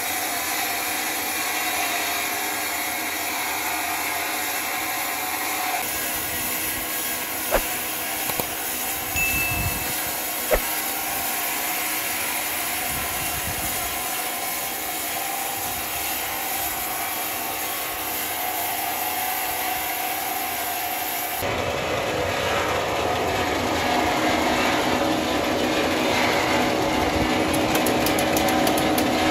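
Sawmill machinery running steadily as a saw cuts through timber, with a few sharp knocks about seven to ten seconds in. The sound changes abruptly twice, about six and twenty-one seconds in.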